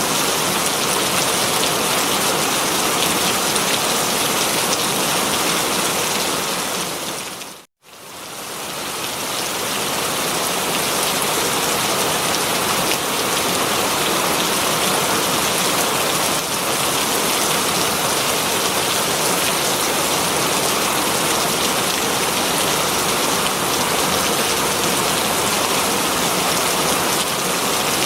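Heavy rain pattering steadily on leaves, a dense even hiss. About eight seconds in it fades out to silence for an instant and swells back up over the next couple of seconds.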